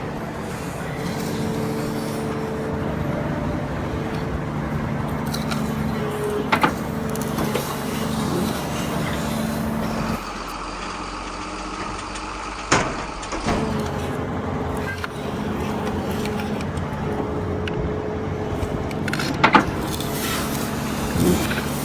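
Truck engine sound running steadily. Its low hum drops out for a few seconds about ten seconds in, then returns. A few sharp clicks cut through it, about six, thirteen and nineteen seconds in.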